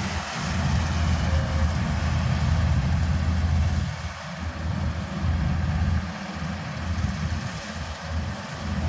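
Combine harvester running steadily in a paddy field: a heavy engine with a mechanical noise over it, easing briefly about four seconds in.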